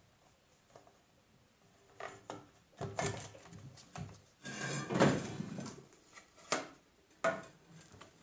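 Metal lathe parts being handled: a few separate knocks and clinks, with a longer scrape about halfway through, as the large change gear of a TV-16 lathe's gear quadrant is handled and put back in place.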